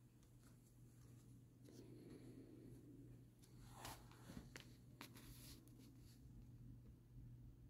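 Near silence: room tone with a steady low hum and a few faint scratching and rubbing sounds, clustered between about two and five and a half seconds in.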